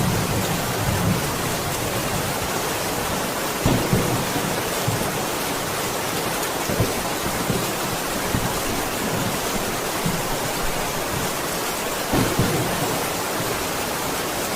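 Steady heavy rain falling on a roof, with low rumbles of thunder at intervals, strongest about four seconds in and again around twelve seconds.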